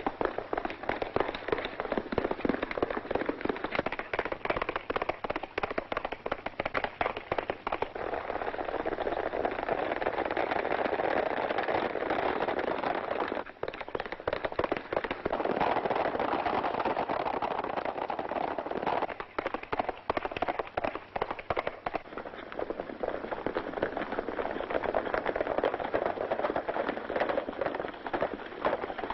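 Horses galloping: a rapid, continuous clatter of hoofbeats, louder in long stretches through the middle and near the end.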